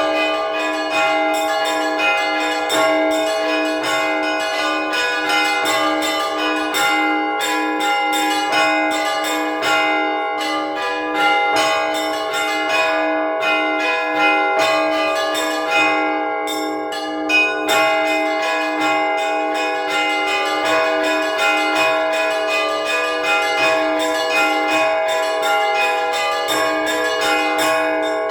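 Orthodox church bells rung by hand in a festive peal: small bells struck rapidly, many times a second, over a steady ringing lower bell. The high bells briefly thin out past the middle, then resume. The sound is picked up by a phone's microphone.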